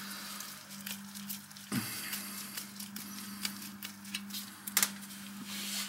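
Scattered light clicks and taps as a gloved hand handles a long closet bolt at the base of a toilet, over a steady low hum.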